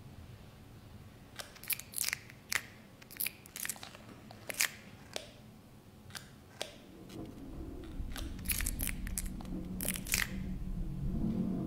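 Sparse, irregular crackles and snaps, a dozen or so, scattered through the first ten seconds. A low rumble swells in under them from about the middle and keeps getting louder.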